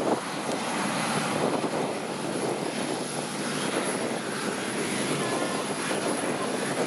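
Boeing 737-300 freighter's CFM56-3 turbofan engines running at low power as it taxis past: a steady jet rush with a thin high whine.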